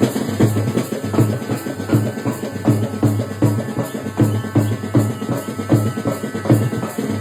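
Kodava Valaga folk music: drums beating a steady rhythm, a strong low stroke about every three-quarters of a second with lighter strokes between, over a sustained high instrumental tone.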